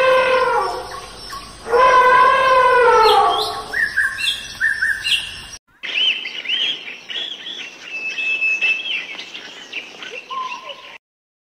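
Elephant trumpeting: a loud, pitch-arching call about two seconds in. Then birds chirping, with one short held whistle, until the sound stops abruptly near the end.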